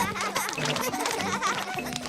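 Cartoon background music.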